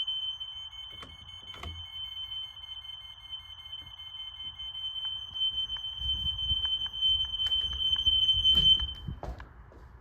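Interconnected hardwired smoke alarms sounding one high, steady alarm tone, set off through the wiring by a test on one detector. The tone cuts off about nine seconds in, with a few low knocks and handling noise beneath it.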